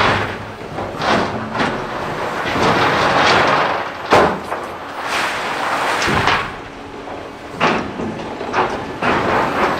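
Liebherr LH60 material handler's clamshell grab digging crushed stone out of a steel rail wagon: stone grinding and rattling against the wagon's steel, broken by several sharp metal clanks, the loudest about four seconds in.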